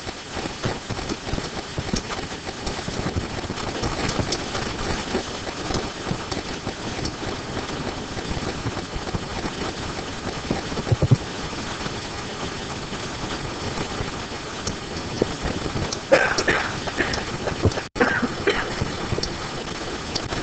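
Steady hiss-like background hum with light scratching and tapping from a stylus writing on a pen display, and one sharper click about halfway through.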